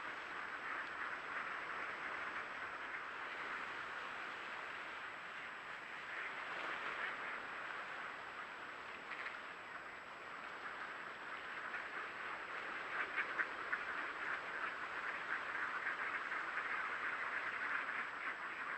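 A large flock of ducks calling together, a continuous chatter of many overlapping quacks that grows a little louder in the second half.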